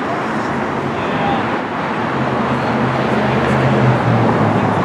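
Steady street traffic noise with a low engine hum, and faint indistinct voices underneath.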